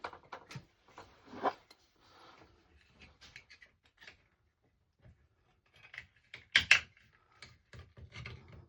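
Hands working on a light fitting and its wiring: scattered small clicks and knocks, with two sharper clicks in quick succession about two-thirds of the way through.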